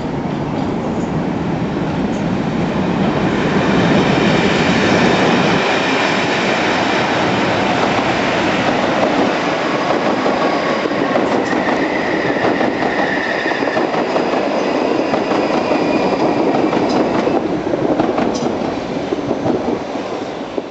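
A locomotive-hauled train of BR Mk3 coaches running past over pointwork, wheels clattering over the joints and crossings, with a Class 47 diesel locomotive at the rear. A brief high squeal comes about twelve seconds in, and the sound fades near the end as the train draws away.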